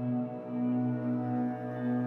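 Slow ambient background music with low sustained string-like tones that swell and fade gently.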